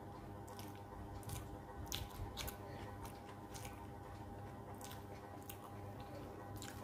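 Faint close-up eating sounds: a person chewing, with irregular soft wet smacks and clicks, while fingers mix rice on a plate. A faint steady hum runs underneath.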